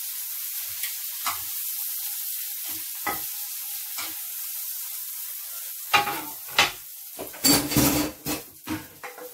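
Hot oil sizzling steadily in a frying pan of chili-garlic prawns as they are lifted out with metal tongs, with a few light clicks of the tongs. About six seconds in, louder clattering and knocking of utensils against the pan.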